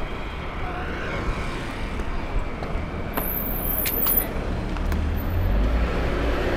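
Longboard wheels rolling over street asphalt amid passing city traffic, with a car and a bus close alongside. A low engine rumble builds about five seconds in, and a few brief high squeals come around three to four seconds in.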